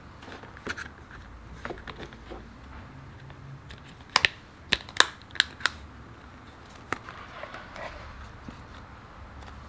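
Clear plastic phone case being snapped onto an iPhone: a run of sharp clicks from about four to six seconds in, and one more about seven seconds in, as the case's edges pop over the phone. Light handling and rubbing noise of plastic in between.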